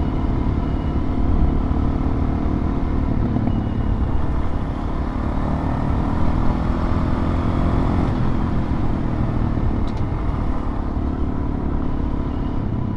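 Suzuki DR-Z400 dual-sport motorcycle's single-cylinder engine running steadily while riding, under a steady rush of wind and road noise.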